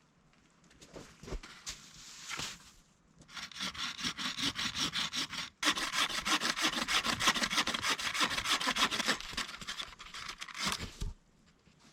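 Hand saw cutting through wood in quick, even back-and-forth strokes that start about three seconds in, pause briefly, then run on steadily before stopping near the end.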